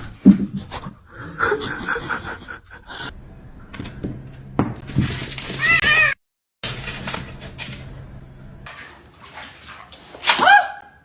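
Cat meowing in short arched calls, about five seconds in and again louder near the end, with knocks and bumps in between.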